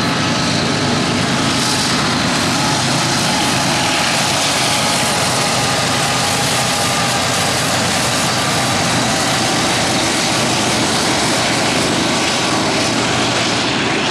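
BNSF freight train passing close by: its lead diesel locomotives run past, then double-stacked container cars roll by on the rails, a loud, steady sound throughout.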